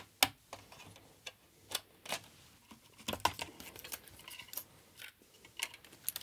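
A mechanical keyboard being unplugged and lifted out of a clear plastic Amiga 1200 case: scattered light clicks and knocks of plastic and keys, with a small flurry about three seconds in.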